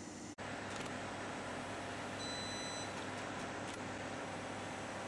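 Inverter spot welder running with a steady hum, a few faint clicks, and one high electronic beep from the machine about two seconds in, lasting just over half a second.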